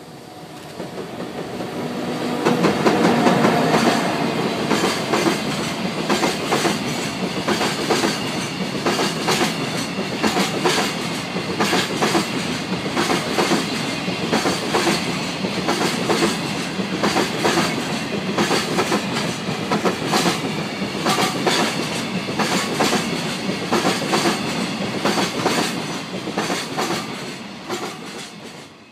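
JR Freight EF64 1000-series electric locomotive passing close by, loudest about three seconds in, followed by a long train of container flatcars clattering over the rail joints in a steady clickety-clack. The clatter fades away near the end as the last wagons go by.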